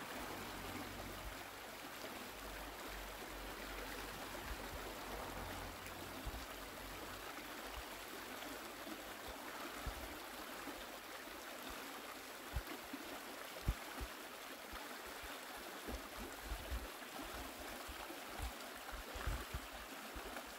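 Shallow mountain river running fast over stones: a steady rush of water, with a few short low thumps in the second half.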